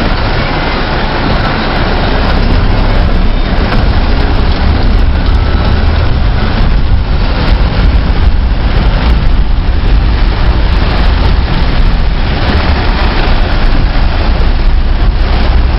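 Car driving through flooded streets in heavy rain, heard from inside: a loud, steady rush of water and rain over a low engine and road rumble, growing a little louder about two seconds in.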